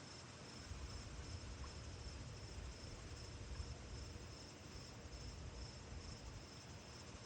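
Faint backyard ambience of wind in the trees: low rumbling gusts on the microphone and an even hiss of rustling leaves, under a steady, evenly repeated high chirping typical of insects such as crickets.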